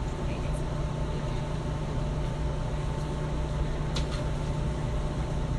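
Steady low hum and hiss of a large store's background ambience, likely ventilation, with a faint steady tone. A brief click comes about four seconds in.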